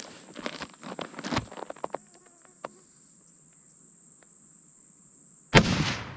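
A single deer-rifle shot fired while sighting in, about five and a half seconds in, over a steady high insect drone. Scattered clicks and rustles come in the first two seconds.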